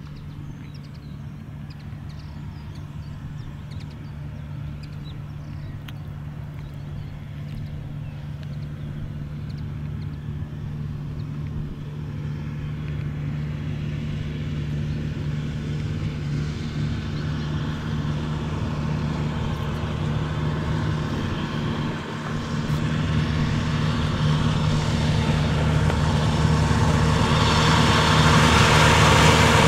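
Narrow-gauge Bord na Móna diesel locomotive approaching with a train of peat wagons, its engine a steady low hum that grows steadily louder. A rattling clatter of the wagons on the track builds up over the second half and is loudest near the end.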